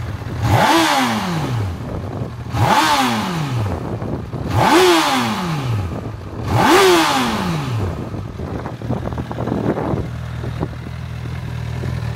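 Honda CB1000R's inline-four engine revved with four quick throttle blips about two seconds apart, each snapping up and falling back. It then settles to a steady idle.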